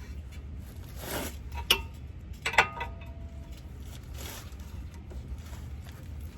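Metal clinking: a sharp clink, then a couple of ringing metal clanks a second later, over a low steady rumble.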